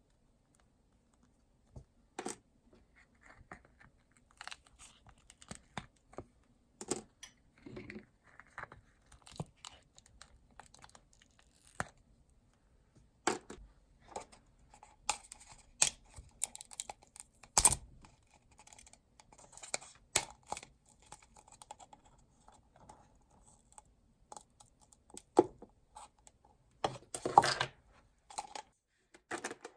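Hands handling small objects: irregular clicks and taps with short scraping and peeling sounds, busiest in the second half.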